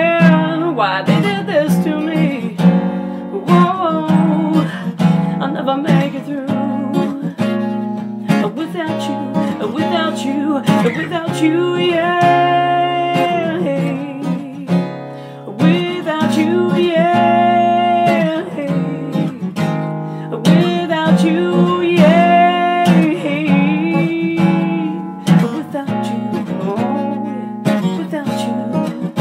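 Song with strummed acoustic guitar and a sung melody line of long, gliding held notes.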